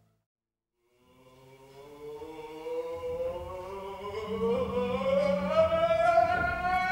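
A single sustained note that glides slowly upward in pitch and grows steadily louder after about a second of silence. A low hum joins underneath about halfway through.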